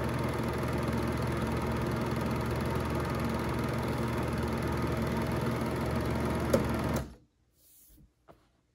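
BerkeyKeystone Dual-8 Model 1550Z silent film projector running steadily, its motor and film transport turning the reels. A click comes about six and a half seconds in, and the projector stops about seven seconds in, leaving near silence with a couple of faint clicks.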